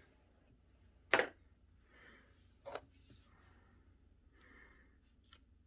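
Small handling noises of craft supplies on a desk: a sharp click about a second in, a smaller one a little later, and soft rustles between.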